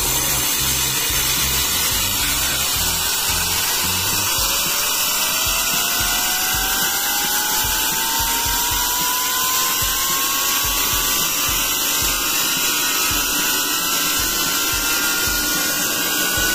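Small handmade steam turbine running on steam while belt-driving a DC motor used as a generator: a steady loud hiss of steam with a whine that rises smoothly in pitch as the turbine gathers speed.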